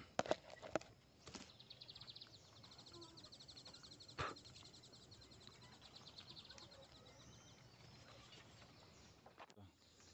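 A faint, fast-pulsing high trill of an animal call that runs for several seconds. It comes with a few sharp clicks in the first second and a single knock about four seconds in.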